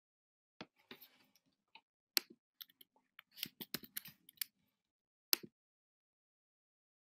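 Irregular clicks and taps on a computer keyboard, in short uneven runs, busiest in the middle, with a last sharp click about five and a half seconds in.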